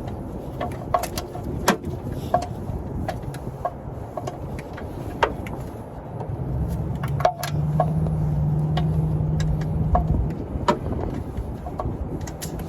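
Irregular clicks and metallic taps of hand tools working on a truck's underside, over a low wind rumble. A vehicle engine hums steadily for a few seconds from about the middle.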